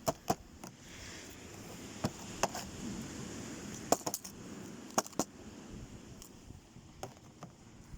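Light, sharp clicks and taps of small hard objects being handled, a dozen or so at irregular times, some in quick pairs.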